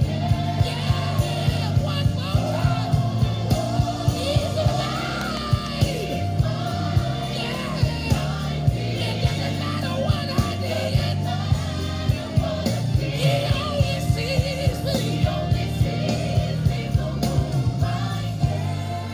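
Recorded gospel music: a singer over a band with a steady beat and bass line. The music fades down near the end.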